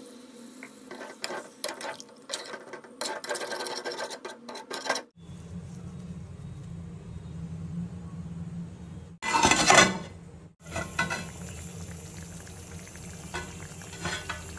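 A metal spoon stirring and clinking against a metal pan of chicken curry, then the curry sizzling and bubbling on the stove as a steady hiss, with a short louder burst of hiss about two-thirds of the way through. The sound breaks off between short clips.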